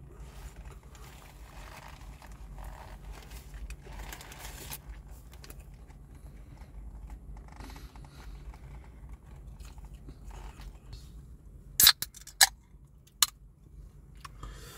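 A man chewing a mouthful of doner kebab, soft irregular eating sounds. Near the end, three sharp clicks.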